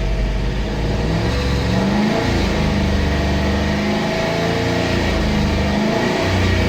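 Chevy Tahoe V8 engine being revved up and back down a couple of times, now running on a new cylinder 1 spark plug that replaced a cracked plug blamed for the cylinder 1 misfire.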